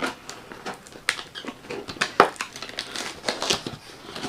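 Packaging being handled during an unboxing: crinkling and rustling with irregular clicks and knocks, the sharpest about two seconds in.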